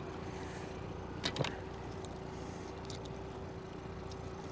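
Steady mechanical hum with a faint steady tone, from machinery on a small fishing boat, broken by two sharp clicks close together about a second and a half in.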